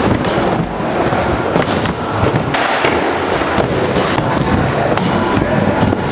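Inline skate wheels rolling and clattering on wooden skatepark ramps, with many sharp clacks and knocks.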